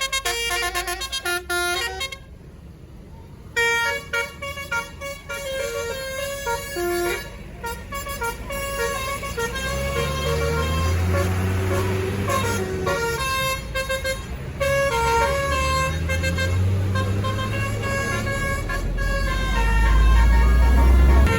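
Tour bus's multi-tone 'telolet basuri' musical horn playing a tune in quick stepped notes, with a short break about two seconds in. A low bus-engine rumble swells under it twice as the bus moves past.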